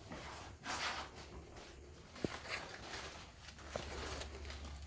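Faint scuffing footsteps with a couple of small sharp clicks, over a steady low rumble.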